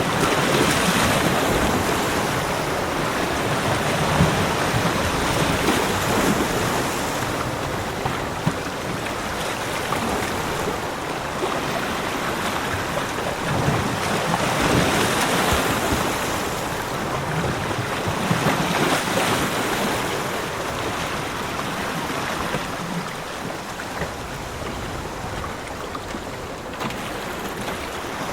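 Sea waves breaking and washing up on a beach: a steady rush of surf that swells and eases with each wave.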